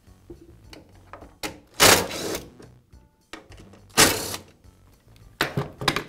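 Cordless screwdriver running in short bursts as it backs the screws out of a switch box cover: two longer runs about two and four seconds in, then briefly again near the end.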